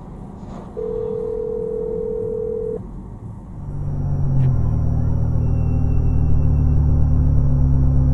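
A steady single-pitch beep lasting about two seconds, then a loud, steady low drone that sets in about three and a half seconds in and holds.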